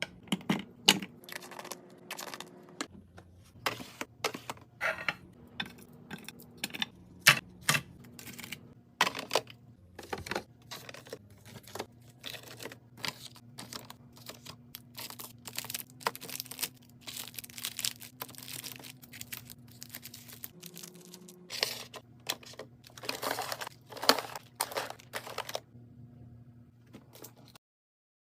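Plastic packaging and containers being handled while stocking a mini fridge: a quick string of crinkles, rustles and sharp clicks and taps, over a faint low hum.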